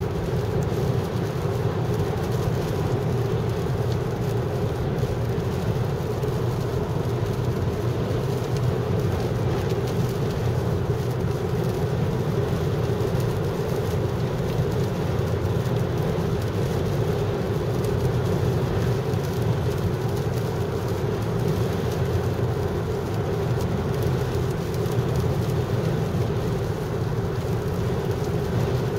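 Steady drone of a car at highway speed, heard from inside the cabin: engine and tyre noise, with rain on the windshield.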